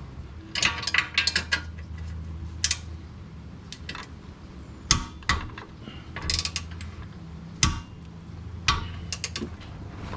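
Ratcheting torque wrench clicking in short runs of strokes, with pauses between them, as a rear suspension bolt is tightened to torque.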